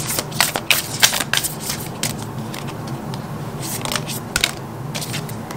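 A deck of oracle cards being shuffled by hand: quick, dry papery flicks and slaps of card on card, thick in the first two seconds, sparser after, with a short run again about four seconds in.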